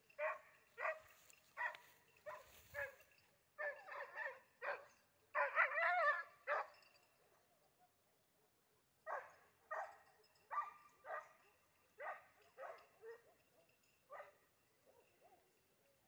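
Hare-hunting dog barking repeatedly in short, pitched barks, roughly one every second, with a denser, louder run of barking a little past the middle, a short pause, then more barks that thin out near the end; the dog is giving voice while working a hare's scent.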